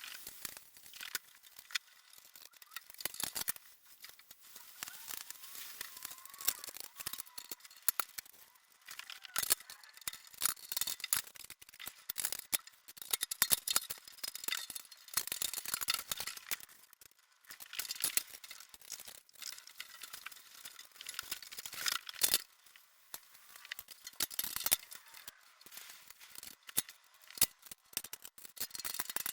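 Irregular clicks, light knocks and rattles with some rustling, as parts and packaging are handled during assembly.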